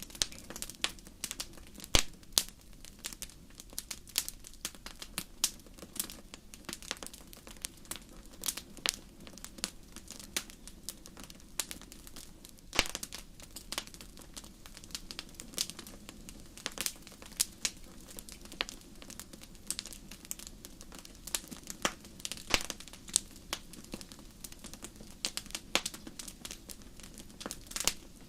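Natural wood burning in a fireplace: a fire crackling with irregular sharp pops, several a second, over a low steady rumble. The loudest pops come about 2 seconds and about 13 seconds in.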